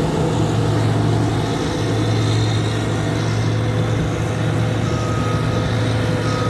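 Combine harvester running steadily while cutting wheat, a constant low engine hum with machinery noise.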